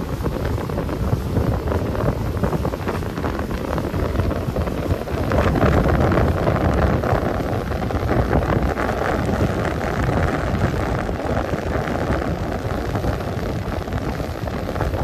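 Suzuki outboard motor running with the boat under way, mixed with wind buffeting the microphone and water rushing past the hull.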